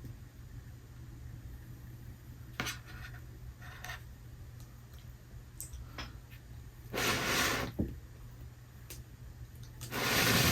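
Hands handling small pieces of a candy house kit: a few light taps and clicks, then two short rustling bursts, one about seven seconds in and a longer one near the end, over a low steady hum.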